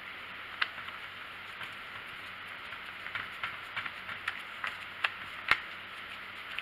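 Light clicks and taps of hands handling the plastic air filter and top parts of a Stihl 290 chainsaw, scattered irregularly over a steady hiss. The sharpest click comes about five and a half seconds in.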